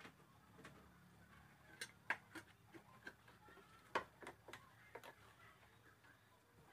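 Faint, irregular metallic clicks and taps of a wrench undoing the nuts holding a car's battery tray, about a dozen short clicks, the sharpest about two and four seconds in.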